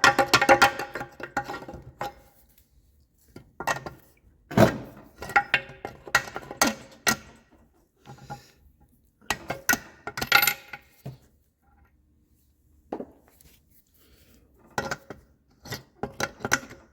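Rapid tapping and clanking of metal tools on the Kohler K321 engine's rusty valve train as frozen tappets are worked loose. The first strikes ring with a clear metallic tone, then come shorter clusters of clinks with pauses between them.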